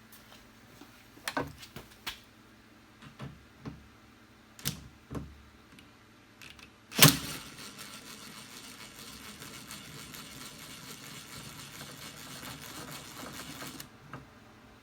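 A few scattered clicks and knocks of tools inside a Jeep Wrangler JK door, then a loud knock and about seven seconds of steady, rapid mechanical clicking as a tool backs out an 8mm bolt holding the door handle, stopping shortly before the end.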